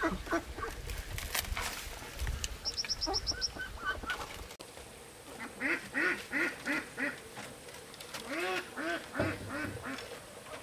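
Domestic ducks quacking in short bursts of several quick quacks, mostly in the second half. Earlier, a small bird gives a quick run of about six high chirps.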